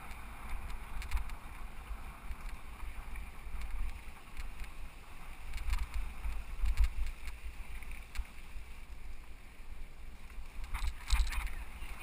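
Ride noise from a camera on a mountain bike rolling along a dirt singletrack: wind buffeting the microphone in gusts over the rumble of the tyres, with a few sharp rattling clicks from the bike, a cluster of them near the end.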